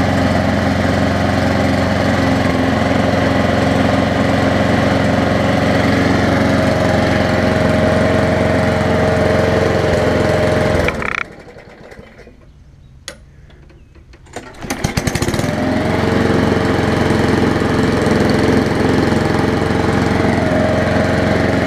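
Craftsman 6.0 hp push mower engine running steadily, freshly fixed with a new fuel line, spark plug and air filter. About eleven seconds in it cuts out suddenly; after a few quiet seconds with a single click it starts again a few seconds later and runs steadily.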